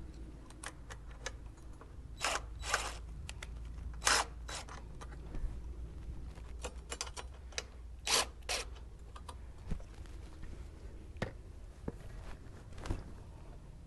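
Small metal clicks and a few short rasping scrapes of hardware being handled and bolts fitted loosely by hand while mounting a headlight and its bracket on a motorcycle.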